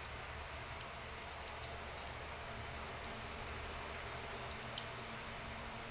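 Faint scattered small clicks from the metal stick magazine of an Umarex VP9 CO2 BB pistol as its spring follower is pulled down and held for loading, the sharpest click near the end.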